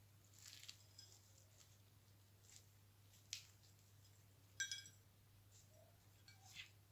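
Crisp baked empanada crust crackling faintly as it is torn open by hand: a few scattered short crackles, the loudest about four and a half seconds in.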